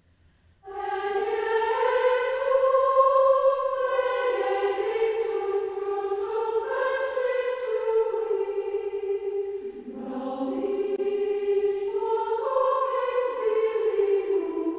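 A choir singing a Marian hymn in slow, sustained notes. The voices come in just under a second in and breathe briefly between phrases about ten seconds in.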